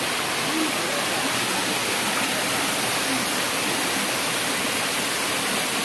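Stream water pouring down a small waterfall and over boulders into a rock pool: a steady rush of water.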